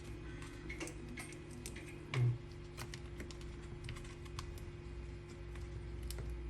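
Scattered small clicks and crackles of hands handling a battery pack and wrapping it with electrical tape, over a steady low hum.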